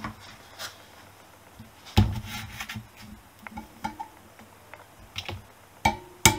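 Rusty steel moped centre stand handled on the bench, with small clicks and a knock that rings briefly about two seconds in. Near the end a small hammer starts striking a brass drift held against the stand's pivot to knock it apart, each blow ringing the steel stand.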